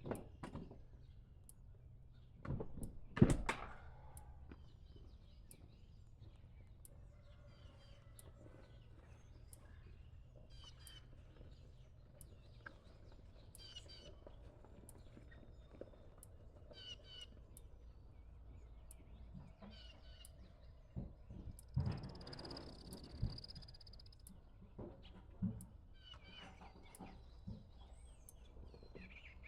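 Small birds chirping on and off over a steady low rumble, with a few sharp thumps, the loudest about three seconds in and more around three quarters of the way through.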